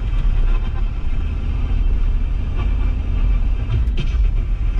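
Steady low road and engine rumble inside the cabin of a moving vehicle.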